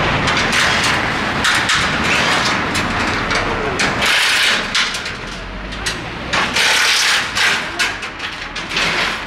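Steel shipping-crate frame clanking and rattling in irregular knocks as it is handled and taken apart, over a steady low rumble of street traffic.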